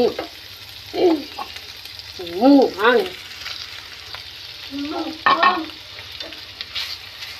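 Onion and sliced pork sizzling in a frying pan while being stirred with a spatula, a steady hiss throughout. A person's voice cuts in briefly three times over it.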